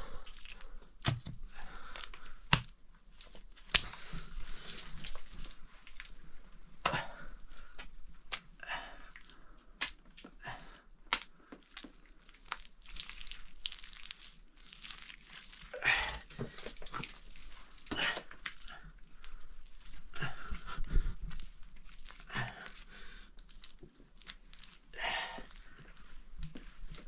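Hand slapping, pressing and smoothing wet mud plaster onto a wooden log, giving irregular squelches, crunches and soft slaps.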